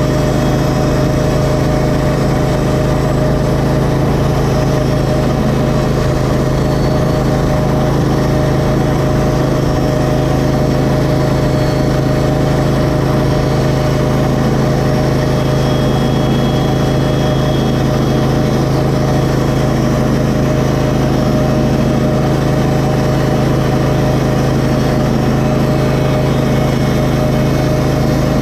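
TimberKing band sawmill powered by its 23 hp Briggs & Stratton Vanguard V-twin engine, running steadily under load as the blade saws a board off a yellow pine cant. The engine note holds even and unchanging throughout.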